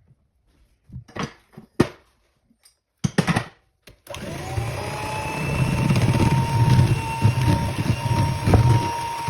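A few knocks and clatters, then about four seconds in an electric kitchen motor switches on, its whine rising briefly as it spins up and then running steadily with a heavy low whirr.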